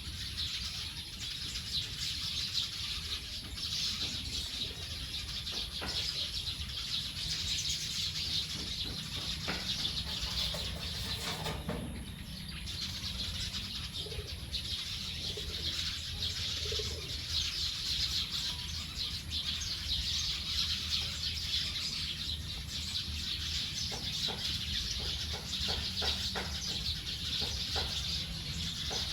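A large flock of small birds chirping and chattering all at once at a roost as they settle for the night, a dense, continuous high-pitched chorus. It thins briefly about twelve seconds in.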